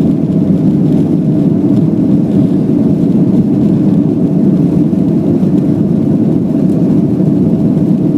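Steady, unchanging low drone of engine and travel noise heard from inside a moving vehicle.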